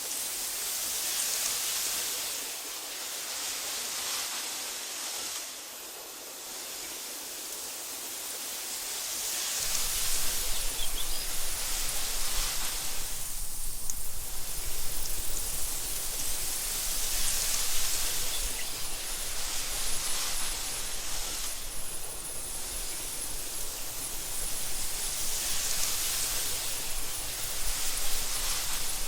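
Wind blowing through tall meadow grass, a steady hiss that swells and fades every few seconds. About ten seconds in, a low rumble joins and it grows louder.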